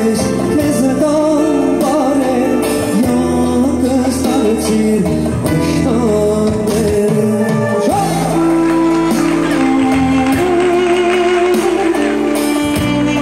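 Live Armenian pop song: a male voice singing an ornamented melody over an electronic keyboard and a programmed percussion beat.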